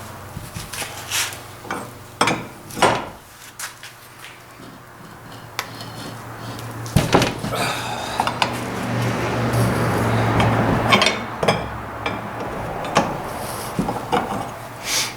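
Metal clinks and knocks of tools and vise parts being handled and worked on, with a denser, steadier stretch in the middle.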